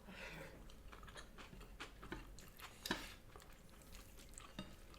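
Faint chewing and mouth sounds, with a few soft clicks, the clearest about three seconds in.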